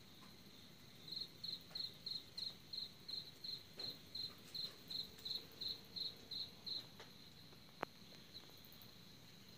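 A cricket chirping in an even run of about three chirps a second for some six seconds, over a steady high insect trill. A single sharp click comes near the end.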